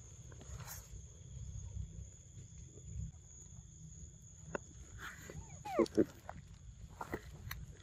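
A young macaque gives a few short squeals about six seconds in, pitched calls that curve up and down. They are the loudest sounds here, heard over a steady low rumble and a steady high drone.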